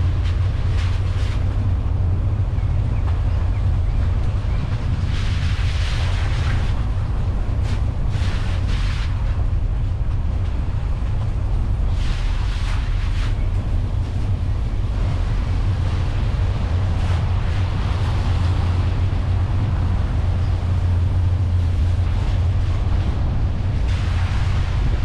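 Car driving along a wet country lane: steady low wind rumble on the microphone over road noise, with the hiss of tyres on the wet surface swelling several times.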